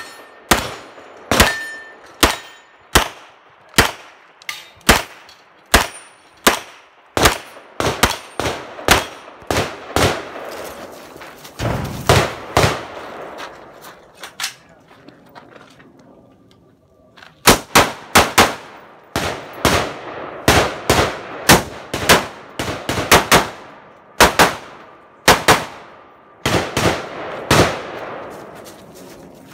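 Rapid gunfire from a competitor shooting a 3-gun stage: shots every half second to second for the first ten seconds, closer strings after that, a pause of about three seconds past the middle, then quick bursts of shots to the end.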